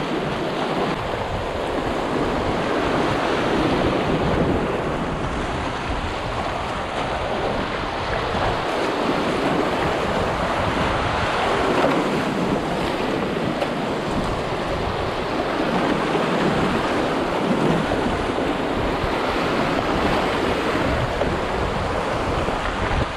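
Steady rush of a small, flood-swollen creek's muddy whitewater pouring over rocks, heard from a paddleboard riding down the rapids, swelling and easing in waves.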